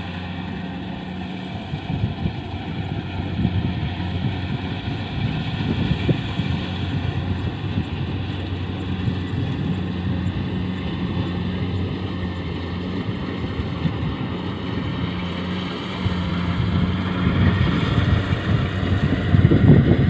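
A machine engine running steadily with a low hum under a dense rattle and rush of noise, getting louder in the last few seconds.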